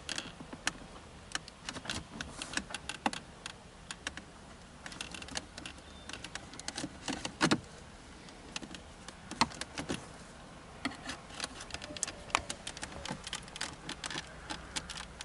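Plastic center-console trim around a 2016 Ford Fusion's gear shifter being pried and worked by hand to free its retaining clips: many small irregular clicks and creaks, with a few sharper knocks.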